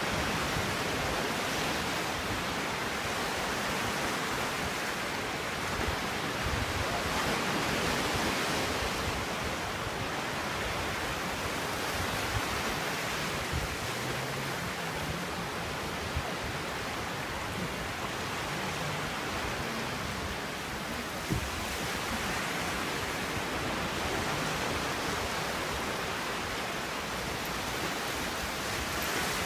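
Sea washing against a rocky shoreline: a steady rushing of small waves that swells and eases slowly, with a few faint knocks.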